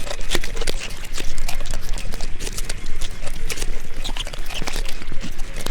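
Wolves feeding: a dense, irregular run of crunching, cracking and tearing sounds as they chew, with a few brief higher-pitched whines or snarls mixed in.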